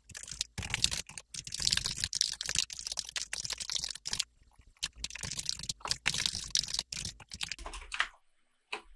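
Fast typing on a computer keyboard: rapid runs of key clicks in two bursts, with a short pause about four seconds in, stopping about a second before the end.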